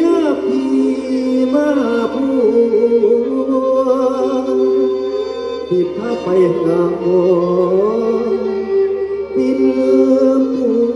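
Live mor lam music: several steady tones held together, with a wavering melody line moving over them.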